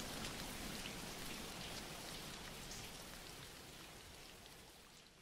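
Rain ambience: steady rain with fine pattering drops, fading out gradually over the seconds.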